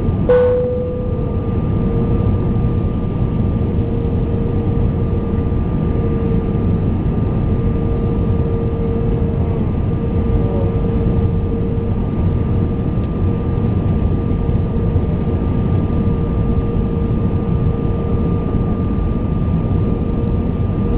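Airbus A320 passenger-cabin noise in flight: a steady rumble of engines and airflow with a constant whine on top, as the airliner descends toward landing. A brief click sounds just after the start.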